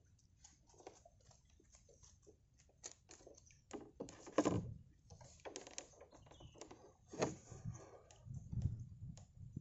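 Scattered small drips, taps and knocks as a bamboo-framed lift net is worked in floodwater, with two louder splashy noises about four and a half and seven seconds in.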